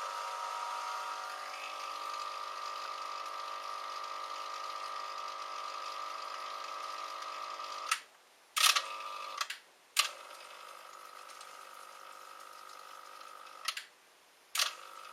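Eheim Classic 2213 canister filter's motor and impeller running with an abnormal noise, a steady whine with several tones in it. It breaks off for a moment with clicks about eight seconds in and again near the end, and runs quieter after the first break.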